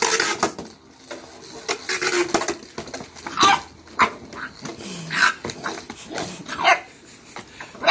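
Pit bull puppy growling and giving a few short yips at a spinning Beyblade top. Scattered knocks and clatter come from the top and the puppy's paws against the plastic stadium bowl.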